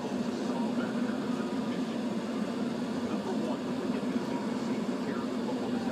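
Steady car-cabin noise in city traffic: a low engine hum with street traffic heard from inside the car.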